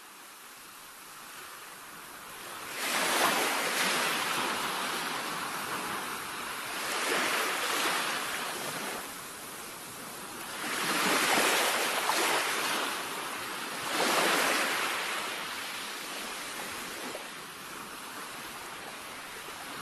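Ocean surf: waves washing in, swelling and falling back four times, about one every three to four seconds.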